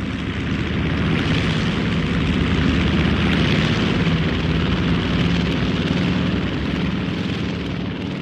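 Twin-engine turboprop airplane flying past: a steady roar of engines and propellers that swells over the first second or so, holds, and eases slightly toward the end.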